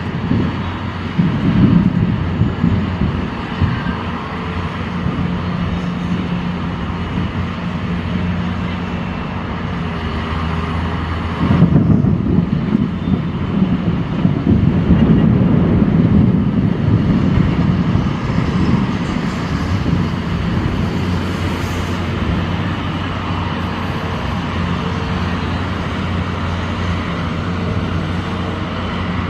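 Steady hum of vehicle engines and road noise, swelling louder and rougher about twelve seconds in before settling back.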